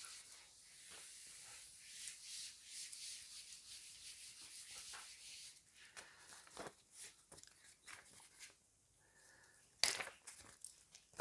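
Whiteboard eraser rubbing across a whiteboard in a run of quiet, rough wiping strokes for about the first five seconds. Then it goes much quieter, with a few light clicks and a sharper click near the end.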